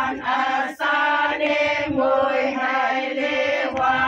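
A group of voices singing a traditional Naga festival chant in chorus, with long held notes, a short break about a second in and a new phrase starting near the end.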